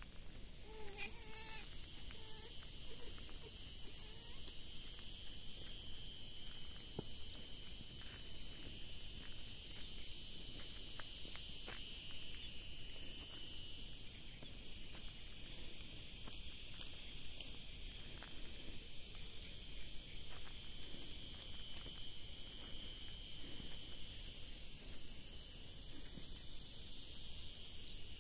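Steady, high-pitched chorus of insects shrilling. A kitten mews a few times in the first seconds.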